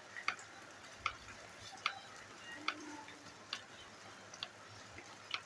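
Rainwater dripping: single drops strike one at a time, about eight in a few seconds at an uneven pace, over a faint steady hiss.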